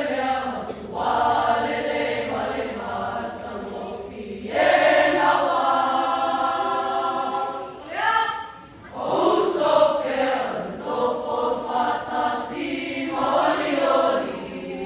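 Samoan school group of boys and girls singing a pese (Samoan song) together as a choir: long held notes in phrases, with short breaks about four and eight seconds in.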